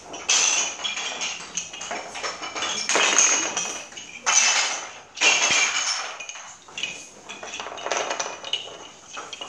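Short wooden sticks clattering against each other and the wooden floor, in repeated bursts about every second or so.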